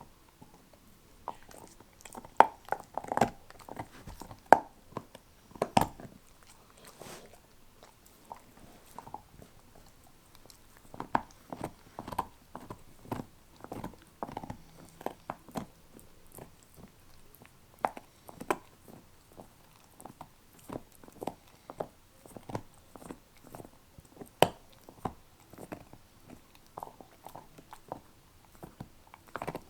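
A dog chewing and gnawing on a beef neck bone: irregular sharp cracks and crunches of teeth on bone, with wetter chewing between them.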